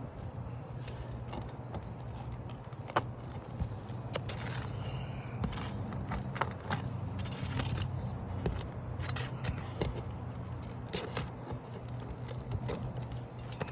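Hand tools scraping and clicking against asphalt roof shingles as they are pried up to reach the nails, in short irregular strokes.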